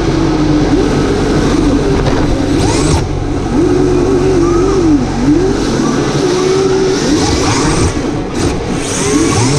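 Electric motor of a radio-controlled drift car whining. Its pitch rises and falls with the throttle, with a sharp dip about five seconds in.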